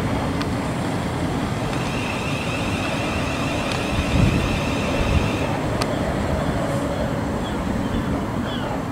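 Electric multiple-unit passenger train running past on the tracks below, a steady rumble of wheels on rail. A high whine holds for about three seconds, and two dull thumps come around four and five seconds in. Short bird chirps near the end.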